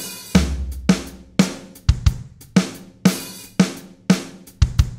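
Logic Pro software drum kit played live into a Drummer track being recorded as MIDI: a beat of kick, snare and cymbal hits, about two a second, the cymbals ringing on after each hit.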